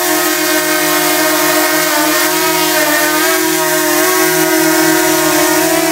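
DJI Mini 2 mini drone hovering at close range, its four small propellers making a loud, steady, high buzzing whine. The pitch wavers slightly now and then as the motors adjust.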